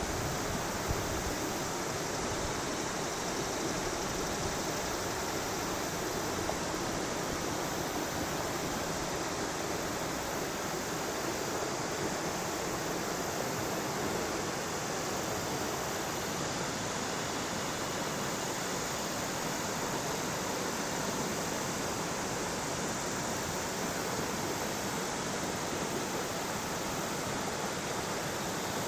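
River water rushing over rocks: a steady, even rush with no change in level.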